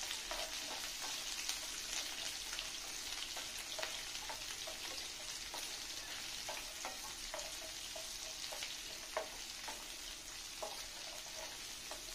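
Small onions (shallots) sizzling steadily in hot groundnut oil as they are sautéed. A wooden spatula scrapes and knocks against the pan at irregular intervals while they are stirred.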